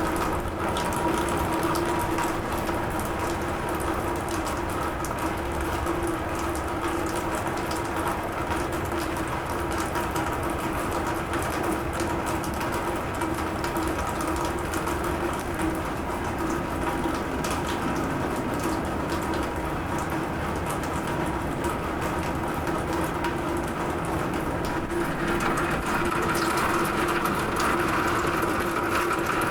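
Rain falling on a roof: a dense, steady patter of drops over an even hiss, with a steady low hum underneath. The rushing grows a little louder near the end.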